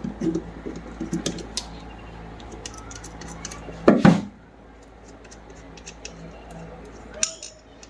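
Small metal clicks and taps of tools and fan parts being handled while a ceiling fan is taken apart, with one louder knock about four seconds in.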